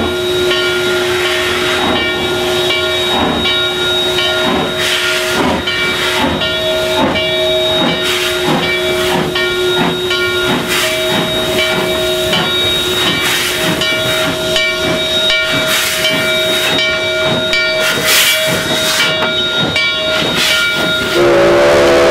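Narrow-gauge K-36 class 2-8-2 steam locomotive hissing steam, with steady tones and rhythmic beats about once or twice a second. About a second before the end its chime steam whistle begins sounding, louder than everything before it.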